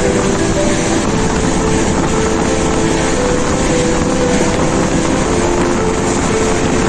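A passenger train in motion, heard from on board: loud, steady running noise with humming tones that shift in pitch now and then.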